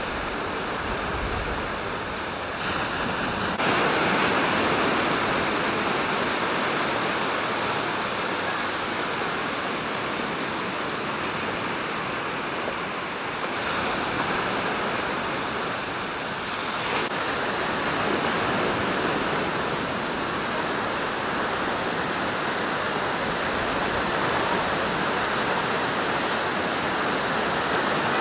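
Sea surf washing onto a sandy beach: a steady rush of breaking waves that swells louder a few seconds in and again about midway.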